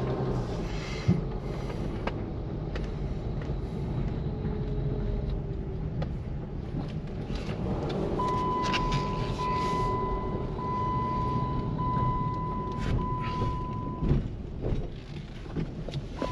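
Car driving, a steady rumble of road and engine noise heard from inside the cabin. About halfway through, a steady high beep sounds as about five long pulses over some six seconds.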